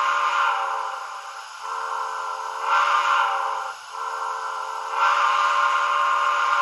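Model steam locomotive's sound-decoder whistle, a recording taken from a 2-8-2 Mikado, blowing a long multi-note chime through the model's small speaker. It is held throughout, swelling and fading, with short dips about a second and a half in and near four seconds.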